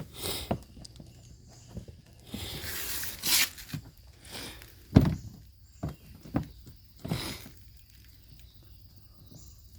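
Hands working a plastic mud flap and its screw at a car's wheel arch: scattered knocks and clicks, a brief rustle, and a sharp knock about five seconds in.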